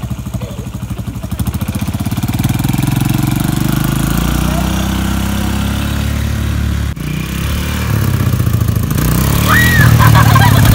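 Four-wheeler (ATV) engine running as it is ridden across a yard, its pitch shifting with the throttle, with a sudden break about seven seconds in.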